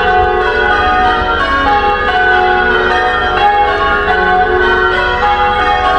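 Church bells ringing from a church tower, several bells sounding in turn with their tones overlapping, as a call to the 8 am service.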